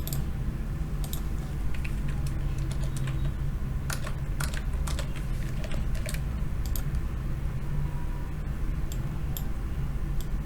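Scattered, irregular clicks of a computer keyboard being typed on, over a steady low hum.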